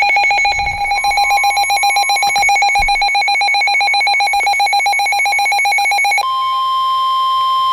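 Weather alert radio sounding its alarm for a warning: a rapid warbling electronic beep that stops about six seconds in, leaving the steady single-pitch NOAA Weather Radio warning alarm tone.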